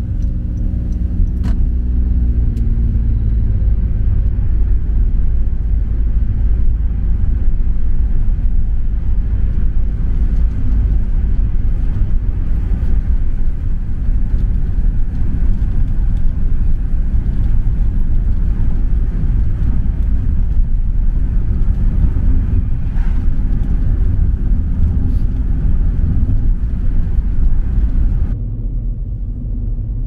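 Vehicle running: a loud, steady low rumble, with an engine tone falling in pitch over the first few seconds. The sound turns duller and a little quieter near the end.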